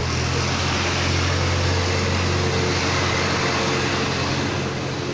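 A steady low motor hum over a rushing noise, a little louder in the middle.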